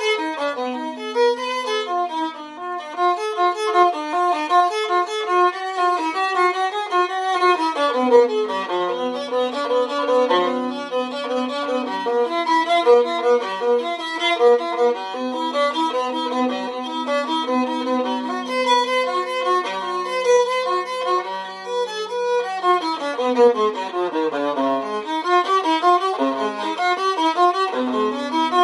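An antique 15.5-inch viola labelled Antonius Stradivarius, played with the bow as an unaccompanied melody. A held lower note often sounds under a moving upper line as double stops, and near the end a quick run sweeps down to the instrument's low register and back up.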